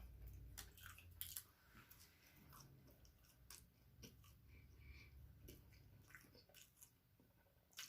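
Faint chewing and mouth sounds of a person eating, with soft scattered clicks.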